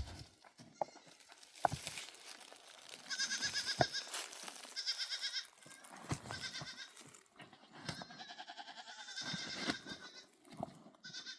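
Goats bleating repeatedly: about five high, wavering calls, with a few sharp knocks in between.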